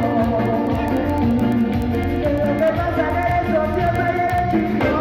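Live band music with a male lead singer singing held notes into a microphone, over a steady bass line and drums keeping an even beat.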